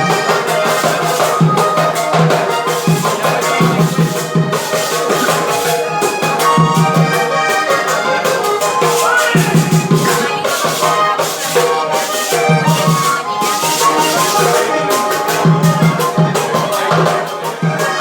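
Latin American music with shaker-like rattling percussion over a steady beat and a held melodic line.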